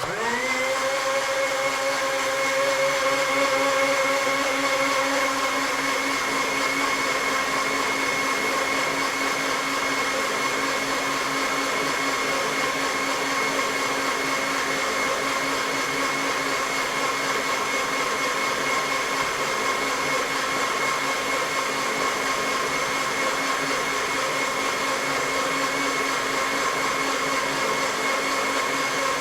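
Electric kitchen blender switched on: the motor spins up within a fraction of a second, then runs at a steady high speed with a constant whine.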